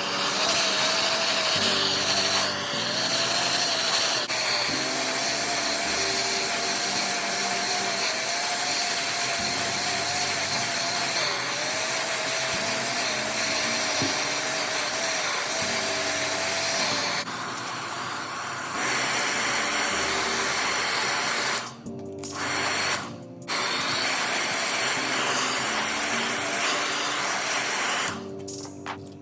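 A small electric power tool running with a steady, slightly wavering whine, over background music. The whine stops about two-thirds of the way through, and the sound cuts out briefly twice a few seconds later and again near the end.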